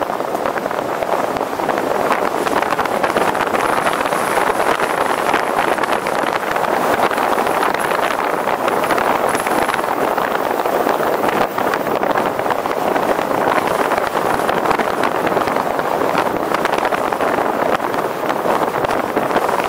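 Steady rushing road and wind noise of a vehicle travelling along a city street.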